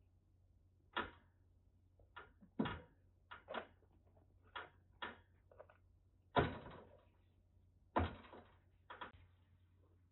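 A dozen or so short, light knocks and rustles at irregular intervals, the loudest about six and a half seconds in.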